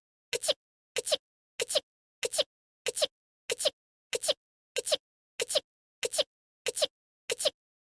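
An anime character's sneeze, voiced by a young woman, looped over and over: about twelve short sneezes evenly spaced, one every two-thirds of a second, each in two quick parts with silence between.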